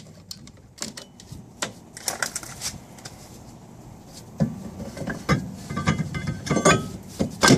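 Screwdriver clicking the star-wheel adjuster of a 1990 Buick LeSabre's self-adjusting rear drum brake, then the brake drum pushed on over the shoes: metal scraping and knocking with a short metallic ring, the loudest knock near the end.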